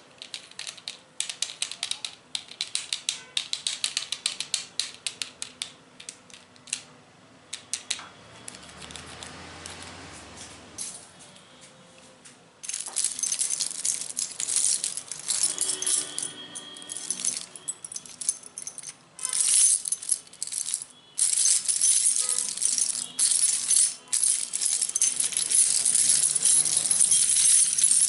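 Close-up ASMR tapping on small hard objects, a quick string of taps and clicks, turning about halfway through into a louder, dense shaking rattle.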